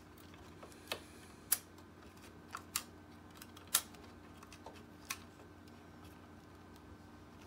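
Light, scattered clicks and taps of plastic parts being handled inside an Epson SureColor P600 printer, about six in all, mostly in the first five seconds, over a faint steady hum.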